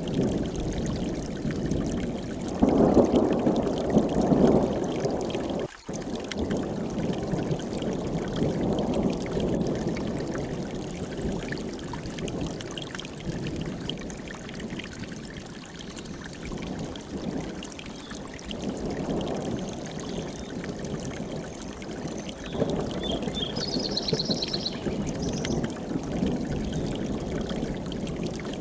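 Mountain stream rushing and splashing over rocks, a steady deep flow that swells louder for a couple of seconds early on. The sound cuts out for an instant about six seconds in, and a short high bird trill sounds over the water near the end.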